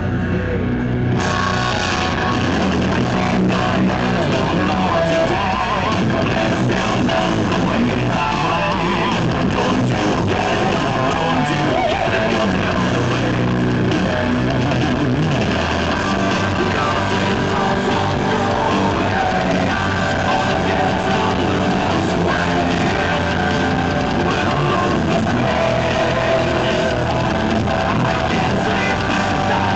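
Ibanez electric guitar played through a loud amplifier in a heavy rock style, with a continuous run of notes and riffs; the tone turns brighter and fuller about a second in.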